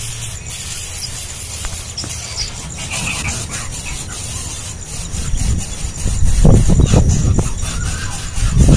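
Nestling birds giving high, raspy begging cries, a hungry chick calling for food. A low rumble, like wind on the microphone, grows louder about six seconds in.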